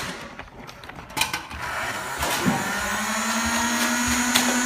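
Small electric motors of a motorized flywheel Nerf blaster spinning up about two seconds in, then holding a steady whine. A few clicks come just before.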